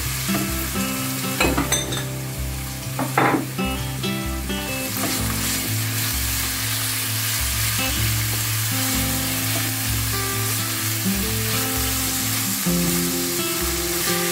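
Minced chicken sizzling as it fries in olive oil in a pan. A utensil scrapes and knocks against the pan a few times in the first few seconds as the mince is stirred.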